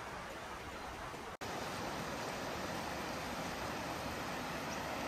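A shallow, rocky river rushing steadily over stones, an even hiss of water. It cuts out for an instant about a second and a half in and comes back slightly louder.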